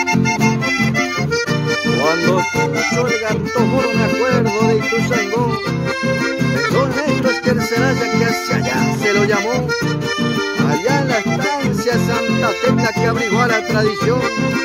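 Button accordion playing a lively instrumental melody over steady, rhythmic bass chords.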